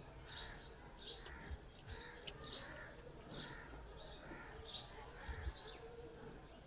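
A small bird chirping over and over, short high chirps coming about one or two a second. A few sharp clicks or taps fall near the start, the loudest about two seconds in.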